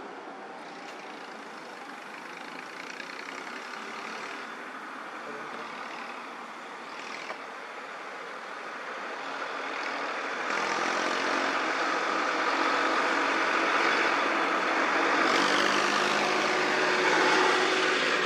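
Road traffic engines running. About ten seconds in a louder diesel engine with a steady hum comes in, a farm tractor passing close by, and it stays loud to the end.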